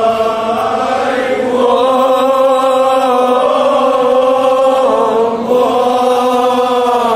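Kashmiri marsiya, a mourning elegy, chanted by men's voices in long drawn-out held notes, with a brief break about five and a half seconds in.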